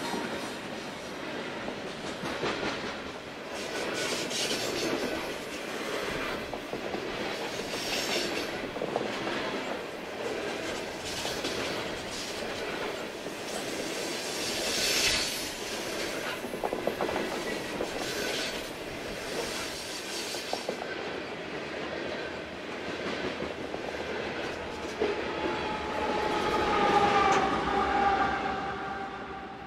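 Freight train hopper cars rolling past: a steady rumble and clatter of steel wheels on rail, with louder clacks every second or two as wheels cross joints. A steady whine joins near the end, the loudest part of the passage.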